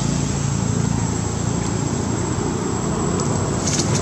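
Steady low mechanical hum, like a running engine, with a thin high whine held over it and a few faint clicks near the end.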